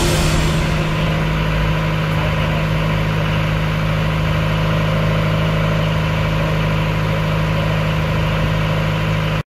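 Motor cruiser's engine running steadily at an even speed, a constant low hum.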